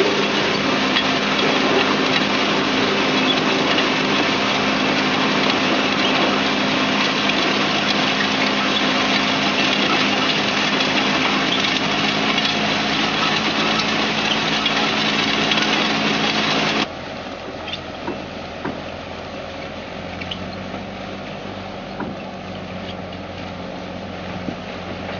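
Tractor engine running steadily together with the noise of a tractor-drawn plastic mulch lifter winding soil-laden plastic film onto its reels, heard close up. About two-thirds of the way through it cuts suddenly to a quieter, steady tractor engine heard from farther off.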